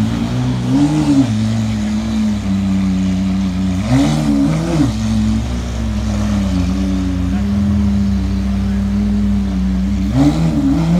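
Lamborghini Aventador's 6.5-litre V12 idling as the car rolls off slowly. It is blipped in short revs: once about a second in, twice around four seconds in, and twice near the end.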